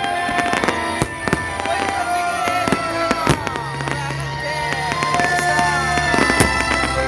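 Fireworks bursting in rapid, repeated bangs and crackles, with music playing underneath.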